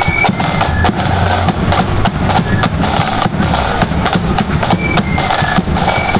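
Marching flute band playing: high flute melody over rapid snare drumming and a bass drum beat.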